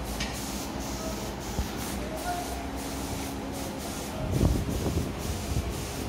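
Small diesel engine of an Iseki TS1610 tractor running steadily with an even pulsing, and a short patch of louder knocking about four seconds in.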